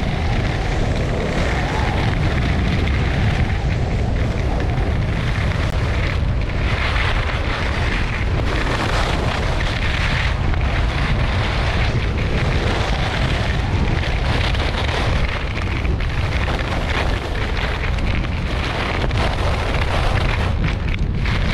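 Heavy wind rumble on an action camera's microphone while skiing at speed, under the hiss and scrape of Atomic Redster G9 skis carving on packed, groomed snow. The scraping swells and fades with each turn, every second or two.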